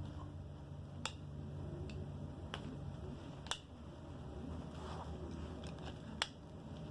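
Sharp metallic clicks from a button lock being worked on a newly unboxed tool, four separate clicks a second or more apart, over a low steady handling rustle.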